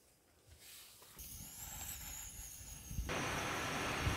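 Gas camping burner hissing under a cast-iron pan; about three seconds in, oil poured into the hot pan starts sizzling, suddenly much louder, and keeps crackling steadily.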